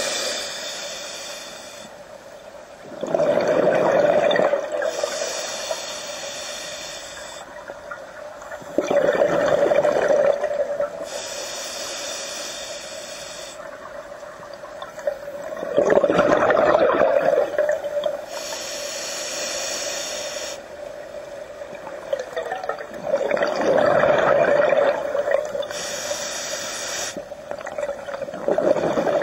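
Scuba diver breathing through a regulator underwater: a hissing inhale, then a louder burst of exhaled bubbles, repeating about every six to seven seconds, five breaths in all.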